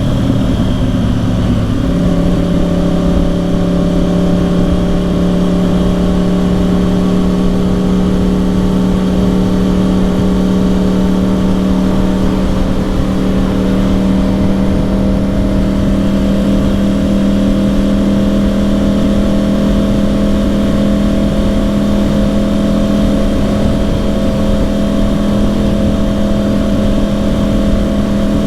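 2010 Yamaha R1's crossplane inline-four, through a Yoshimura exhaust, running at steady revs while riding, with a constant rumble of wind and road underneath. The engine note shifts briefly about two seconds in, then holds steady.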